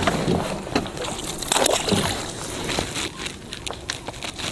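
Water sloshing and splashing against a landing net as a hooked rainbow trout is netted beside the boat, with irregular sharp splashes and a busier burst about a second and a half in.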